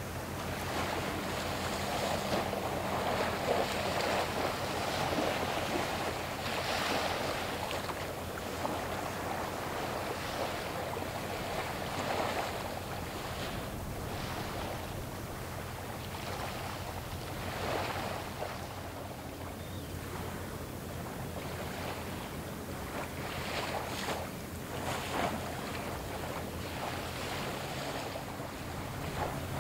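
Low steady drone of a large container ship passing close by, under repeated surges of wave wash and wind noise on the microphone.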